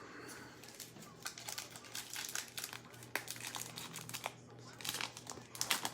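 Foil trading-card pack wrapper crinkling irregularly as it is handled and opened, with a few sharper crackles near the end.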